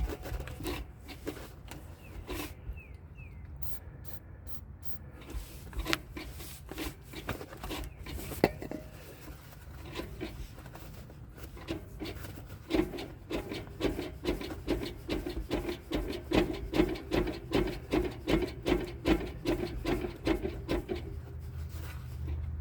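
A steel cable being worked back and forth in its housing after a soak of penetrating oil, now moving freely: scattered clicks and knocks, then from about halfway in a rhythmic rubbing squeak at about two strokes a second.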